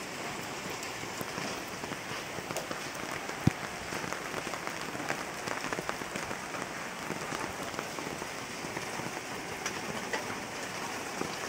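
Steady rain falling on a flooded street: an even hiss full of small drop ticks as the rain hits the standing water. A single sharp tap stands out about three and a half seconds in.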